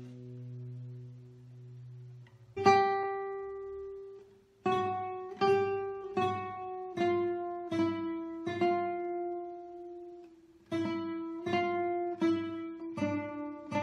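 Nylon-string classical guitar playing a slow single-note melody, each plucked note left to ring. Notes from before ring out and fade for the first two seconds, the melody comes in with a loud note about two and a half seconds in, breaks off briefly near ten seconds, and picks up pace toward the end.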